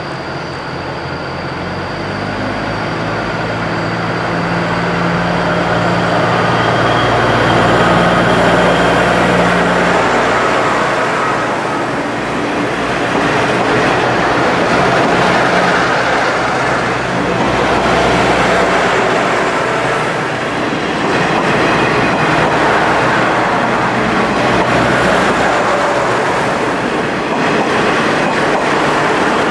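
Diesel railcar set pulling out and rolling past: the engines run up under power over the first few seconds, then the rush of wheels on rail takes over as the cars pass, loud and steady.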